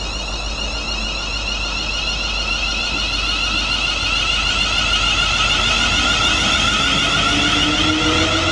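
Siemens Class 350 Desiro electric multiple unit approaching and passing, its traction motors whining in several high tones, with a lower whine rising in pitch over the second half. It grows louder as the train nears.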